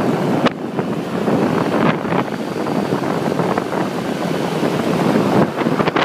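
Wind buffeting a microphone that is moving at road speed, over the rushing noise of engines and tyres on the road.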